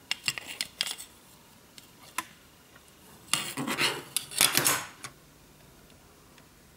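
Two bare fibreglass printed circuit boards being handled: a few light clicks in the first second, then a loud run of clattering and scraping from about three to five seconds in as the boards knock together and slide on a cutting mat.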